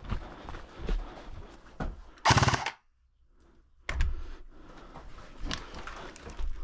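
A short full-auto burst from an airsoft replica about two seconds in, a rapid rattle lasting about half a second, which cuts off into a second of near silence. Around it, scattered footsteps and gear rustling.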